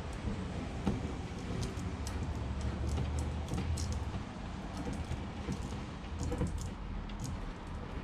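Scattered light metallic clicks and taps as the loose headset of a 1968 Schwinn Racer bicycle is unscrewed and taken apart by hand to free the front fork, over a low steady hum.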